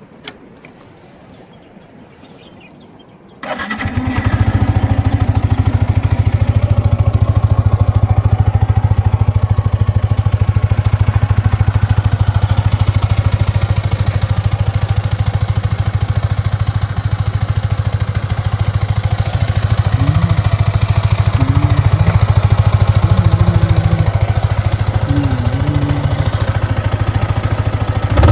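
Yamaha MT-15 BS6 on its stock exhaust: after a single click, the 155 cc single-cylinder engine starts about three and a half seconds in and settles into a steady idle.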